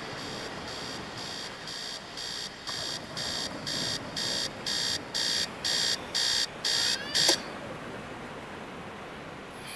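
Rapid electronic beeps like an alarm clock, about two and a half a second, growing louder. They are cut off by a click about seven seconds in.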